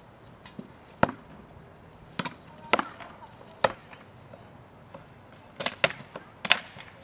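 Rattan swords striking shields and armour in SCA sword-and-shield sparring: about ten sharp cracks at uneven intervals, with a quick flurry of blows near the end.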